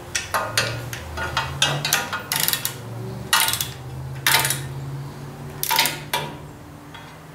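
Socket ratchet clicking in short strokes as the new water pump's bolts are drawn down a little at a time. The metallic clicks come in quick bursts every second or so, over a faint steady hum.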